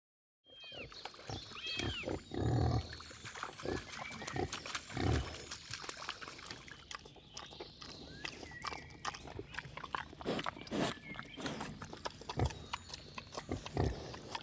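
Wild boar grunting, with a few louder grunts among many sharp crackles and clicks, starting about half a second in.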